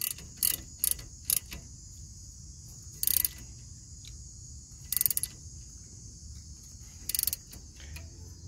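Ratcheting wrench clicking as it tightens the brake-line bolt on a rear brake caliper: a few single clicks at first, then short ratcheting bursts about every two seconds as the wrench is swung back. Insects shrill steadily in the background.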